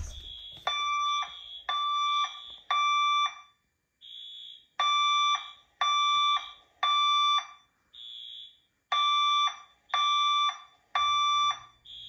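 System Sensor fire alarm speakers sounding the temporal-three evacuation tone: three half-second tones, then a pause, repeated three times. This is the standard signal to leave the building. A fainter, higher short beep sounds in the gaps between the sets.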